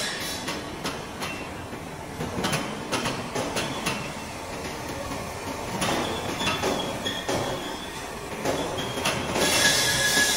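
Steel die-casting mould plates and a chain hoist being handled: irregular metal clanks and knocks with chain rattle as the mould half is lowered and set in place.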